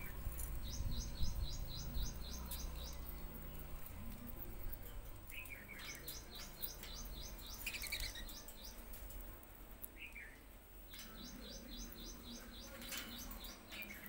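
Caged budgerigars at a seed dish: light clicks of pecking and husking seed, with three runs of quick, evenly repeated high chirps, about four a second, and a few short falling calls. A low rumble sits under the first few seconds.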